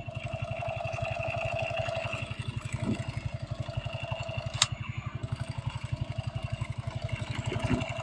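Battery-powered toy SCAR rifle firing its sound effect: a rapid buzzing rattle at about twelve pulses a second, with a steady whine over it and a sharp click about four and a half seconds in.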